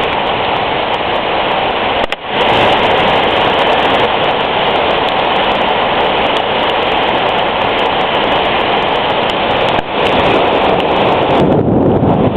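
Heavy rain pouring down in a thunderstorm, driven by wind: a loud, steady rush of noise that drops briefly about two seconds in and again near ten seconds.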